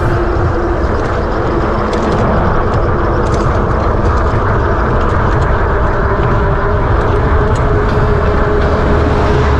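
Loud steady rush of wind and road noise while riding along a road, with a faint steady hum that rises slightly in pitch about two-thirds of the way through.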